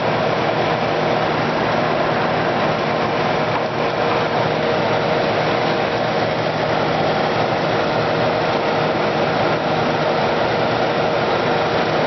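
Kenmore Model 5925 dehumidifier running with its Embraco compressor on: a steady hum over an even rush of air.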